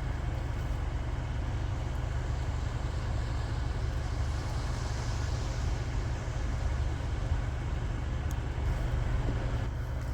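Steady rain falling in a thunderstorm, an even hiss over a constant low rumble.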